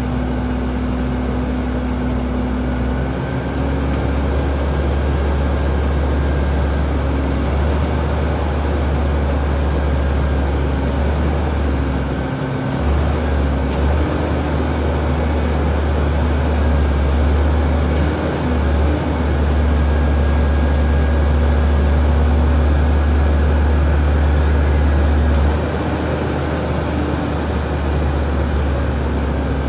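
Diesel engine of an International refuse truck running at the curb: a steady low rumble that swells and eases a few times, loudest for several seconds before easing off near the end.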